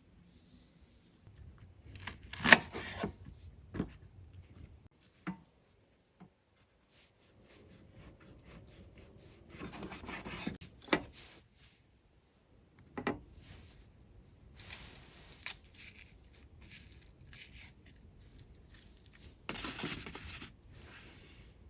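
Intermittent handling noises of cooking preparation: rustling, scraping and rubbing, broken by a few sharp clicks and knocks, the loudest about two and a half seconds in.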